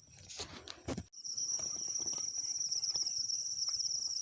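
Rustling and a couple of soft knocks, then about a second in a night insect starts a high, steady, rapidly pulsing trill that carries on as the loudest sound.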